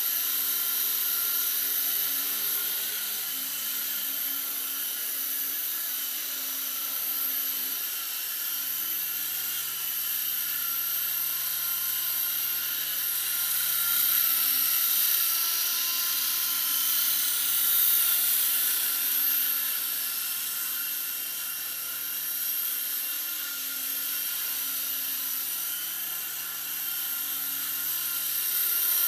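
Micro electric RC helicopter in flight: its motor and rotors give a steady high-pitched whine, which swells louder as it passes close by midway.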